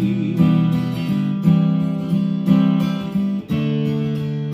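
Acoustic guitar strummed in a steady rhythm, a strong strum about once a second, with a chord change about three and a half seconds in.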